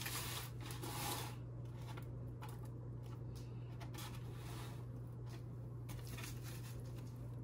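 Spice shaker shaken over a raw turkey in several short rattling bursts, seasoning sprinkling onto the skin, with hands rubbing it in between. A steady low hum runs underneath.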